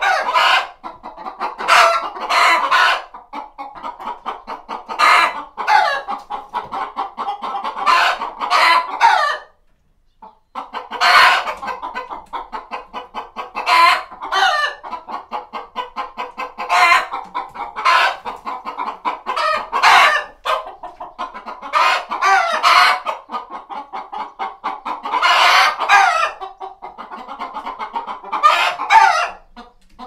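Hens in a hen house clucking in a dense, rapid chatter, with louder squawking calls breaking out every second or two. The sound drops out briefly about ten seconds in.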